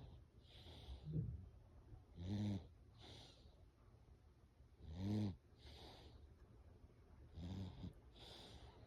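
Loud snoring: a rough, pitched snore on each breath in, about every two and a half seconds, each followed by a hissing breath out.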